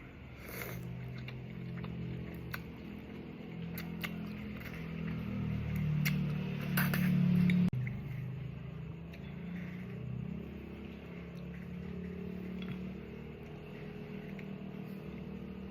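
Close-miked eating of cold soba noodles: scattered chewing and mouth clicks, with a louder slurp about six to seven and a half seconds in, over a low steady hum.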